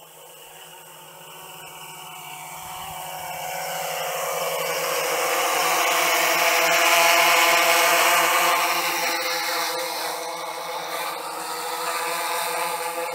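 Quadcopter drone's motors and propellers whirring in low flight, growing steadily louder as it closes in. It is loudest about seven seconds in, then eases a little as it hovers close by.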